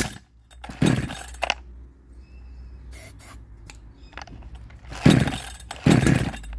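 Recoil starter of a 62cc Chinese chainsaw being pulled: two pulls about a second in, a pause of a few seconds, then two more pulls near the end, the engine cranking without catching. The owner suspects the ignition timing is wrong.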